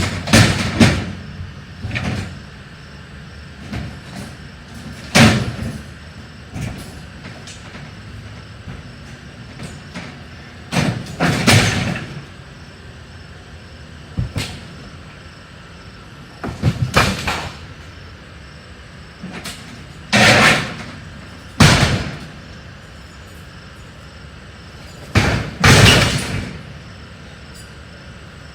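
Junk and debris being thrown into a truck: repeated loud crashes and bangs every few seconds, some in quick pairs, over a steady low hum.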